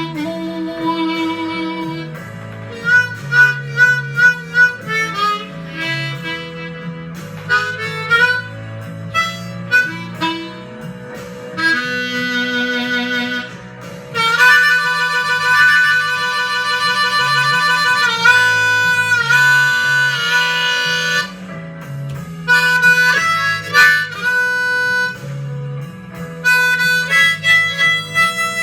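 Blues instrumental break: harmonica playing a melody over a steady guitar accompaniment. Short notes give way past the middle to a long held chord of several notes, then short phrases return.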